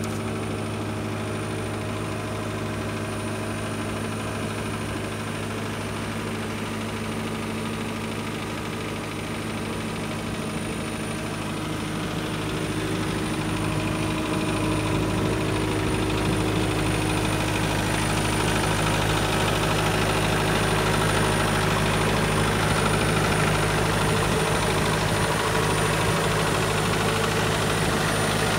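Diesel engine of a CAT 257B2 compact track loader idling steadily. It grows louder in the second half.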